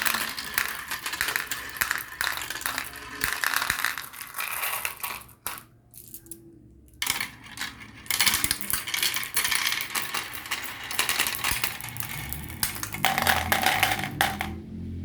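Marbles rolling and clattering down a marble run: a dense stream of rapid clicks. It breaks off for about a second and a half midway, then resumes.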